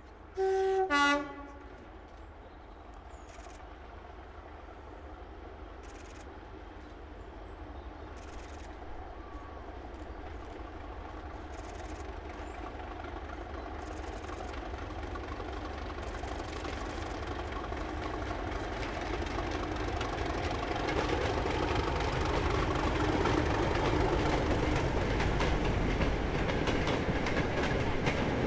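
Class 37 diesel locomotive D6700 sounds a short two-tone horn, a higher note then a lower one, about half a second in. Its English Electric V12 diesel engine and the wheels of its loose-coupled goods wagons then grow steadily louder as the train approaches and passes, with clickety-clack over the rail joints.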